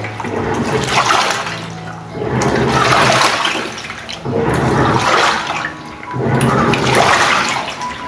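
Singer fully automatic top-loading washing machine agitating a load of clothes in water during its wash cycle: swishing, churning water that swells and drops back in surges about every two seconds.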